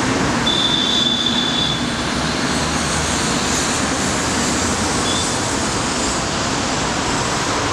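Steady wash of city traffic from many cars and buses running on a busy square. A thin high tone sounds about half a second in and lasts about a second, with a brief one again near five seconds.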